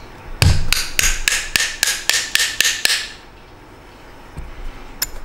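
A small hammer tapping a screwdriver to knock a ball bearing out of a ZMX brushless drone motor: about ten quick taps, roughly four a second, each with a metallic ring. The tapping stops about three seconds in.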